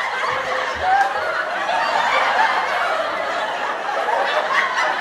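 Laughter from a group of people, many voices overlapping in a steady wash of chuckling and snickering.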